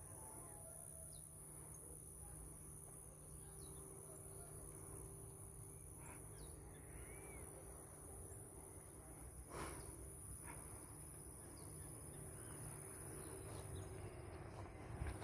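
Steady high-pitched drone of insects, with a few faint bird chirps and a single sharp click about two-thirds of the way through.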